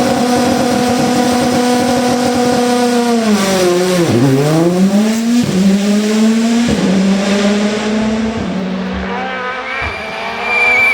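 Rally car engine driven hard past the spectators: the engine note holds high, drops steeply as the driver lifts about four seconds in, then climbs again with quick upshifts. A thin high whine joins near the end.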